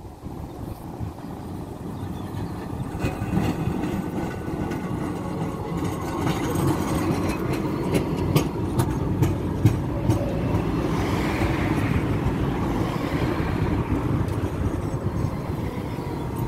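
Tram running on its rails, the noise building over the first few seconds and then holding steady, with a run of sharp clicks and knocks through the middle.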